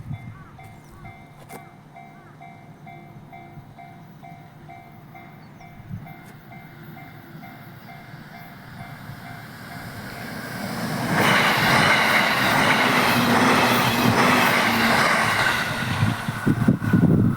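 Japanese railway level-crossing warning bell dinging in a steady two-tone pattern, about twice a second. From about ten seconds in, an electric train's rumble swells loud as it passes through the crossing, with wheels clacking over the rail joints near the end.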